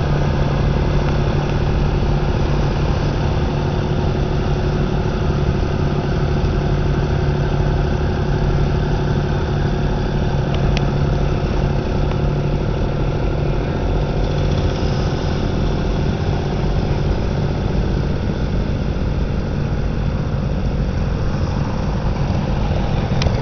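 Small garden tractor engines running steadily with a low hum. A higher steady tone fades out about halfway through.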